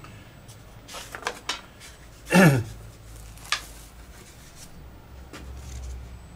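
Light clicks and taps of hand work at a model-building bench, handling balsa parts and glue. About two and a half seconds in there is one short squeak that falls quickly in pitch, the loudest sound here.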